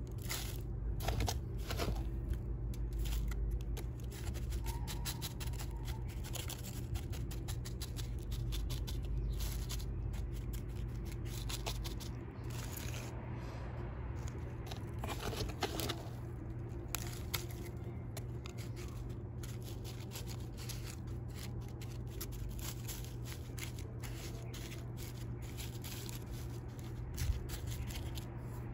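Gritty crunching and scraping of a perlite-and-soil potting mix as fingers press and firm it around a cedar seedling in a small plastic pot, a dense run of small irregular crackles and clicks. A low rumble sits underneath, stronger in the first half.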